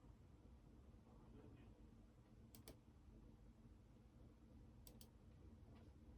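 Faint clicking at a computer: two quick double clicks, about two and a half and five seconds in, with a few softer taps between, over a low steady room hum.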